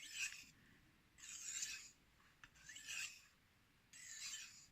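Steel knife blade sliding on a wet 5000-grit whetstone, four quiet scraping strokes about one every 1.3 seconds, alternating sides of the edge during sharpening.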